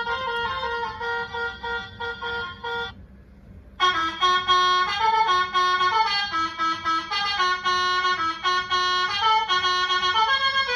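A 30-trumpet Basuri telolet bus horn playing a melody in quick stepped notes. It breaks off about three seconds in and comes back louder about a second later.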